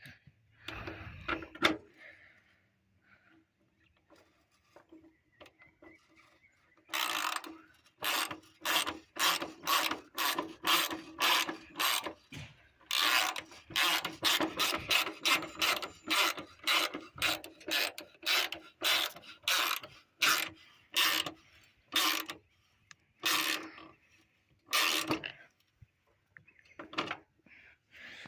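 Hand ratchet wrench clicking in repeated strokes, about two a second, tightening a bolt. The strokes start about seven seconds in and go on with a few short pauses until near the end.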